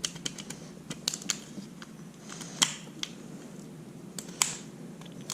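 Irregular light metallic clicks and ticks of hand tools and engine parts being worked, with a few sharper clicks about a second in, near the middle and near the end, as a piston with a ring compressor is fitted to a Predator 212cc engine.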